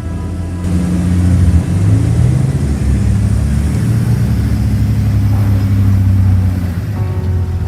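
Dubbed-in truck engine sound effect: a low engine running and revving unevenly, its pitch rising and falling. A music track comes back in near the end.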